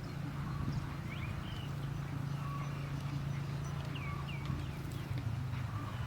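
Steady low hum with a few short bird chirps over it, about a second in and a cluster near four seconds in.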